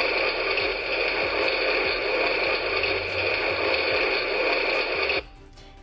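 Barbie Totally Real House toy shower's electronic sound effect: a steady, rain-like hiss of running shower water played by the toy's sound chip. It cuts off suddenly near the end.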